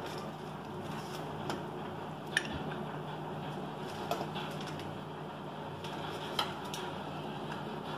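Faint clicks and soft squishing as chopped tomato is dropped onto diced vegetables in a stainless steel bowl, with one sharper click about two and a half seconds in, over a steady low hum.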